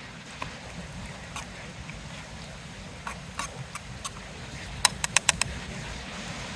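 Wood campfire crackling: scattered sharp pops, with a quick run of about five near the middle, over a low steady rumble.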